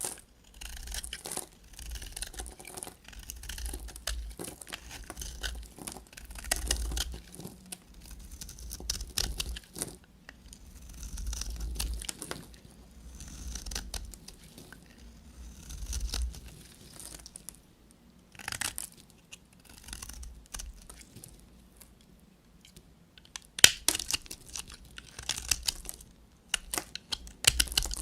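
A knife cutting through bars of soap: a run of crunchy, scraping cuts about every two seconds, then sharper, crisper crackling snaps near the end.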